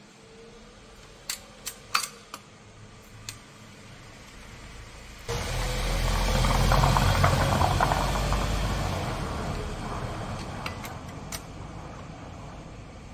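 A few sharp clicks as the controls of a UDT UCS-45S two-stroke chainsaw are worked, then about five seconds in the engine starts with its choke opened after the first brief firing. It runs loudest a second or two after starting, then gradually gets quieter.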